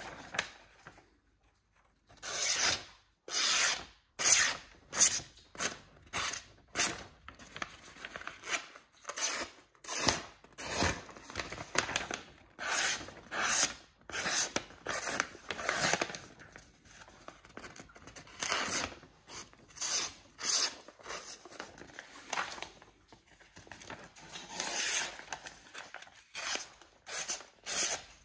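A restored kitchen knife slicing strips off a sheet of lined paper held in the air: a steady run of short, crisp paper-cutting sounds, a little more than one a second, starting about two seconds in. The paper rustles between strokes. The clean cuts show a sharp edge.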